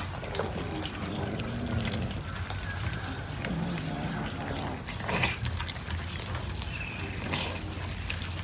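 Several cats eating raw fish strips from a plate: many wet chewing and smacking clicks, with a few short cat calls in between.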